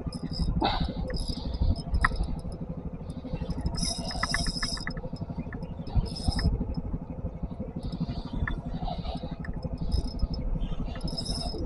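An engine running steadily with a low, fast pulse, and scattered clicks over it, including a quick run of clicks about four seconds in.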